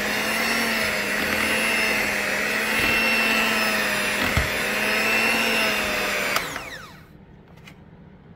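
Electric hand mixer running steadily as its beaters whip thick cream cheese frosting in a bowl, with a couple of light knocks of the beaters against the bowl. About six seconds in it is switched off and whirs down to a stop.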